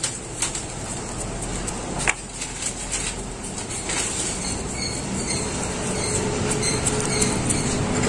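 Coarse salt being sprinkled over raw T-bone steaks on a bamboo cutting board: scattered light ticks of grains landing, over a steady background hiss.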